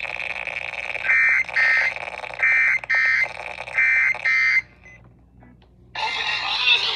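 Emergency Alert System digital data bursts (SAME header tones): six short, harsh buzzing bursts in three pairs over steady radio hiss, typical of the end-of-message signal that closes an alert. The hiss cuts out after the last burst, and a burst of static starts about a second before the end.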